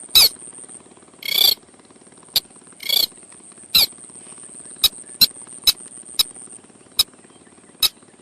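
Sintar (ruddy-breasted crake) lure call: loud, irregular sharp notes, mostly short clicks, with three longer rasping notes in the first three seconds. A faint steady high whine sounds behind them.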